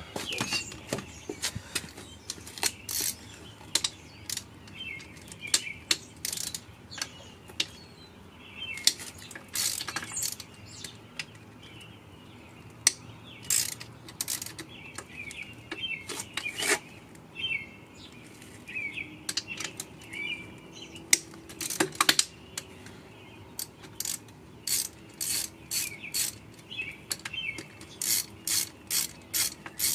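Hand ratchet clicking in short, irregular runs, with a quicker run of clicks near the end, as the oil pump is unbolted from a BMW M54B30 engine.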